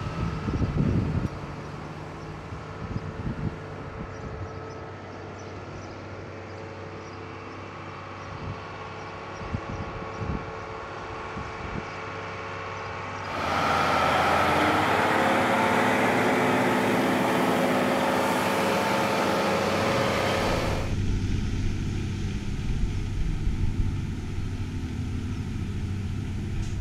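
Heavy asphalt distributor truck's engine running as it drives past spraying preservative seal. About halfway through it turns louder and hissier for about eight seconds, close to the wheels and spray bar, then settles back to a steadier, quieter hum.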